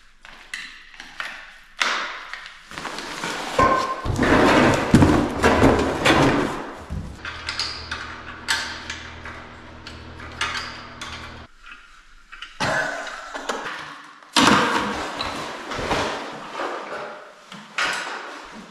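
Hand-crank ice auger being assembled and gear handled: a busy run of rustling, clicks and knocks of metal parts, with a low steady hum for about four seconds in the middle.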